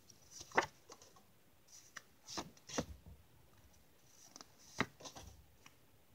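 Paper notecards being handled and swapped by hand: a series of short papery flicks and rustles, the sharpest about half a second in and again near five seconds.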